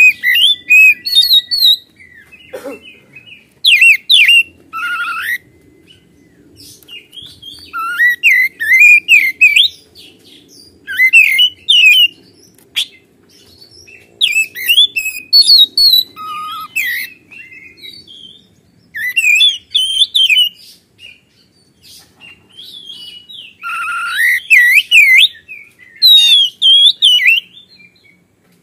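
Oriental magpie-robin singing in loud, repeated bursts of varied, rapidly gliding whistled phrases, each a second or two long with short pauses between.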